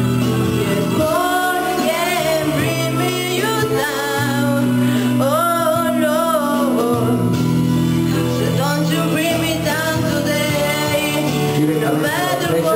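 A young woman singing into a handheld microphone, holding long wavering notes over instrumental backing music.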